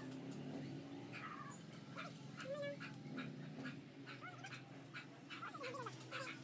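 Dog whimpering in short, high squeaks, repeated many times, with a few clicks, over a low steady hum.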